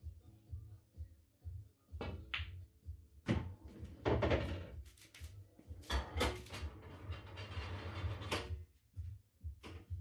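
Pool balls on a pool table: the cue strikes the cue ball and balls collide with sharp clicks, the loudest about three seconds in. Balls then roll and knock for several seconds, over background music with a thumping bass beat.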